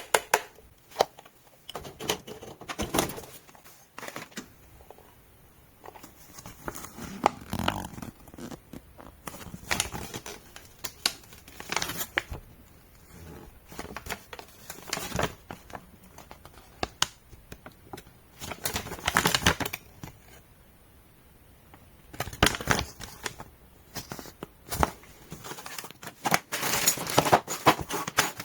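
Irregular handling noises: clusters of clicks, knocks and crinkling as packaging and small parts are handled, with no motor running.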